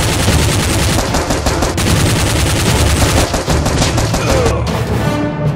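Rapid automatic gunfire, shots following one another in a dense, unbroken stream.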